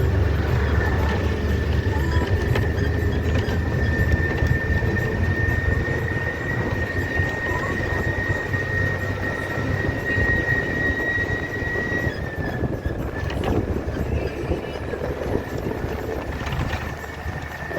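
A vehicle running: a steady low rumble with a thin high whine held at one pitch, which wavers briefly about two thirds of the way through.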